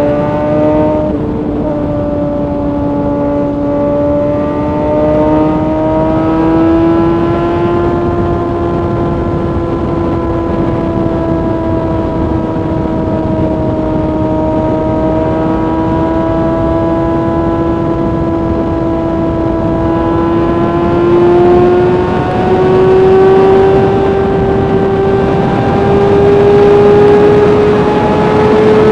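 Kawasaki ZX-6R inline-four engine running at high revs at a steady cruise, with a brief throttle change about a second in. Its pitch rises slowly and it grows louder over the last third.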